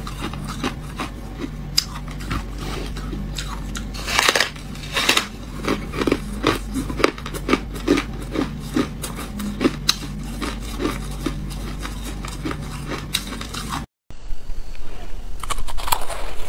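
Freezer frost being bitten and chewed: a steady run of crisp crunches, about two a second, with a couple of louder bites, over a low steady hum. After a brief dropout near the end, denser crunching of crushed ice being eaten by the spoonful.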